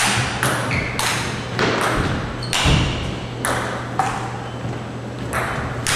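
Celluloid table tennis balls struck hard with paddles and bouncing on the tables in a long-distance 'long pong' rally: sharp pocks at about two a second, unevenly spaced, each with a short echo of a large hall.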